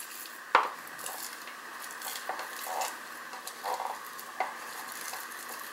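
A spatula scraping sticky wet preferment out of a clear container, with a string of soft knocks and scrapes. One sharper knock comes about half a second in.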